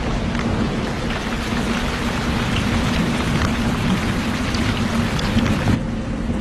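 Heavy tropical rain falling in a steady downpour, with the patter of individual drops through a constant hiss. The hiss suddenly thins near the end.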